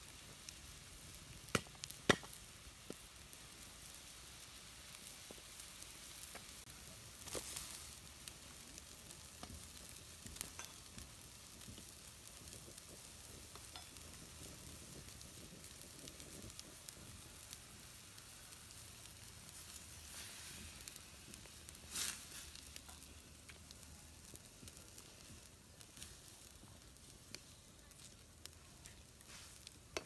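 Water boiling in a wide pan over an open wood fire: a faint, steady bubbling hiss with scattered small clicks and a few sharper knocks.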